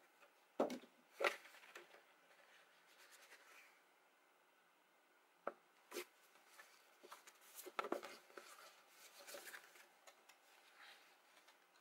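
Faint rustling and sliding of a sheet of white card stock being handled on a table, with a few light taps and clicks from the card and a small plastic glue bottle.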